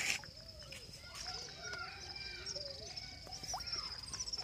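Insects chirring steadily at a high pitch, with faint distant voices underneath.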